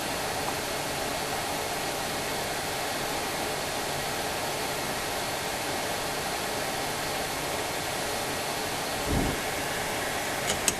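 Steady airy hiss of an 853D hot air rework wand blowing. There is a soft knock about nine seconds in and a couple of light clicks near the end.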